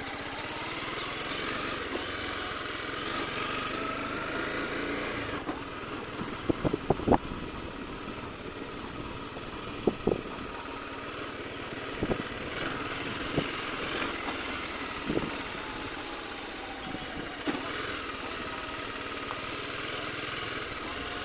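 Honda CBR 250 motorcycle engine running at low speed on a rough dirt trail, its pitch rising and falling with the throttle. Sharp knocks cut in several times, in a quick cluster about a third of the way in and then singly every couple of seconds, as the bike jolts over ruts.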